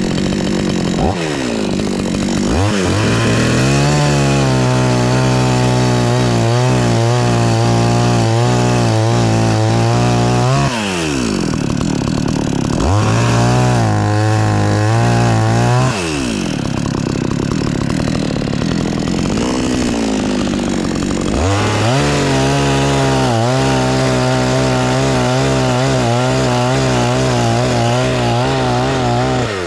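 Two-stroke chainsaw revved up and held at full speed three times while cutting wood, runs of about eight, three and eight seconds, falling back to idle in between.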